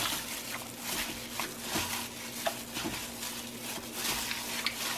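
Gloved hand kneading marinated chicken thighs in a glass bowl: wet squishing of the meat and sauce with the rustle of a thin plastic glove, in irregular short strokes.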